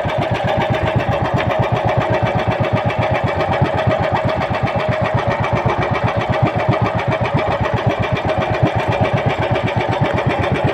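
Engine of a motorized outrigger fishing boat running steadily with a fast, even chugging.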